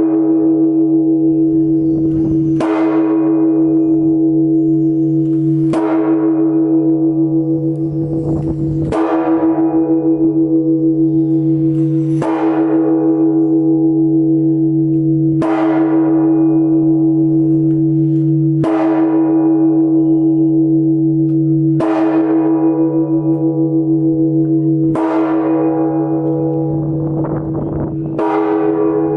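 Phát Diệm Cathedral's great church bell tolling the evening bell, heard up close in the bell tower. It is struck at an even pace, about once every three seconds, nine strokes in all. Each stroke rings on in a deep hum that carries into the next.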